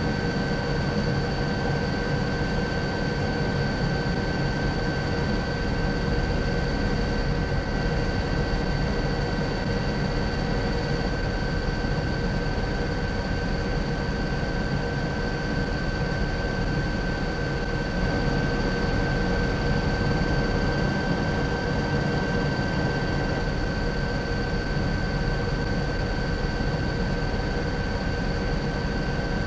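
Steady helicopter noise: a constant low rumble with an unchanging high turbine whine.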